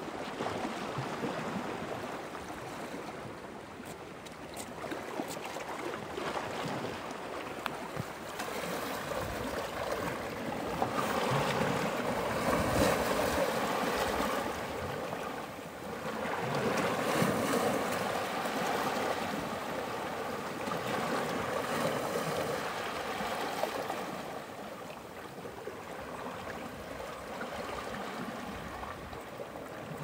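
Sea water lapping and sloshing in a continuous irregular wash, growing louder in two swells through the middle.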